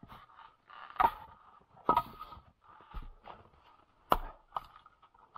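Axe splitting frozen firewood: several sharp chopping strikes about a second apart, with two in quick succession after about four seconds. In the hard frost the logs split cleanly.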